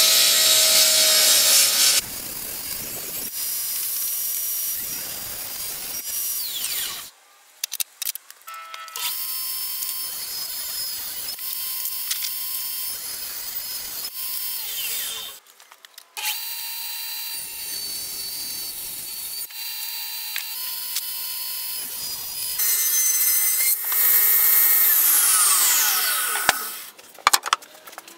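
Old Sears Craftsman table saw running and ripping wood strips over several separate passes: a steady motor and blade whine with the hiss of the blade cutting. Near the end the whine falls sharply in pitch as the blade slows.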